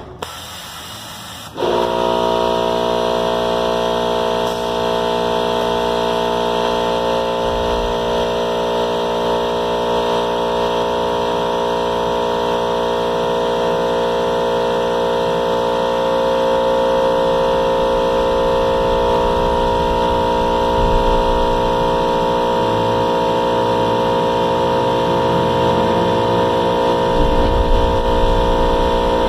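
Tormach 770M CNC mill spindle starting about a second and a half in and then running steadily, a whine made of many steady tones at once. Low rumbling comes and goes in the second half as the end mill works the part in the vise.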